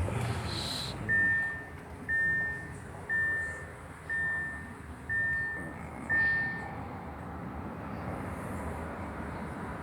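Audi A8 dashboard warning chime sounding six times, about once a second, over the low steady rumble of the running car.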